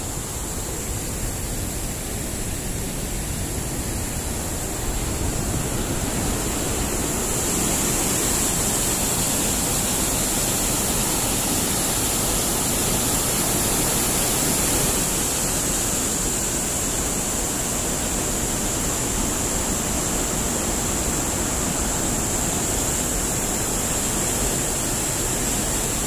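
River water rushing over rocks and surging past a bridge pier below a weir: a steady, loud hiss that grows a little louder about seven seconds in.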